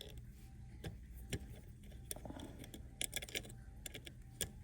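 Small wrench loosening the bolts of a CB antenna mount: scattered light metallic clicks and taps.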